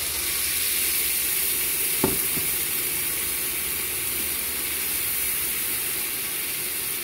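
Beer hitting a hot frying pan of caramelised onions, sizzling steadily as the liquid boils. There is a single knock about two seconds in.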